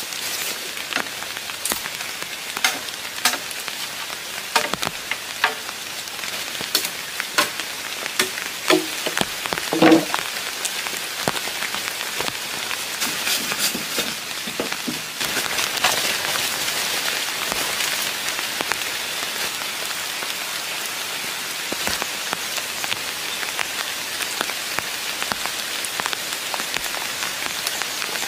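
Rain falling in an even hiss, with scattered sharp taps and knocks over the first half, the loudest about ten seconds in; the rain grows steadier and denser about halfway through.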